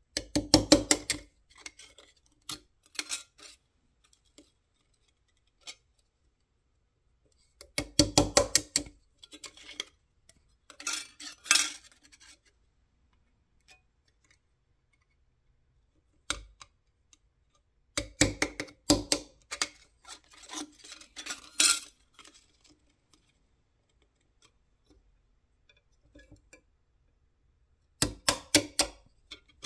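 Small hammer tapping a steel punch against the edge of a metal dial plate set on a steel block: four quick runs of several sharp metallic taps about ten seconds apart, with a brief scraping of metal on metal after most runs as the plate is shifted.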